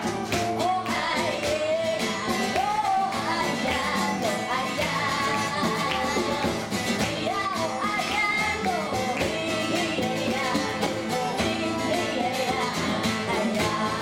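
A live band song: a woman sings the lead melody over strummed acoustic guitar.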